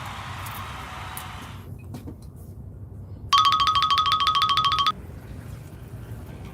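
A loud, rapid electronic trilling beep, about a second and a half long, begins about three seconds in, over low steady background noise that thins out about two seconds in.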